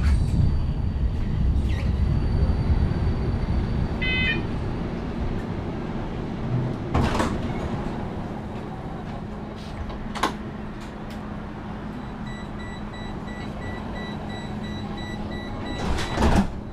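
Tram's running rumble fading as it slows to a stop, with a few knocks. Then it stands with a steady hum while a signal beeps over and over for several seconds. A loud clatter of the sliding doors comes near the end.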